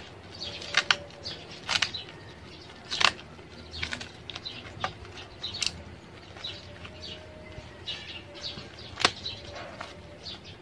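Plastic bubble wrap and a plastic courier bag crinkling and rustling as they are handled and cut open with a utility knife, in irregular short crackles.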